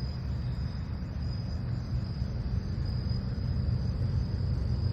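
Crickets chirring in a steady, high, unbroken trill over a continuous low rumble.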